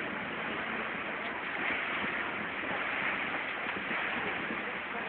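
Steady rushing noise aboard a river cruise boat under way.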